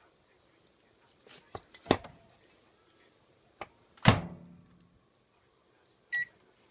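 Sharp microwave oven being closed and started: a few light knocks, then the door shuts with a loud clunk about four seconds in, and near the end a short electronic beep as the start button is pressed.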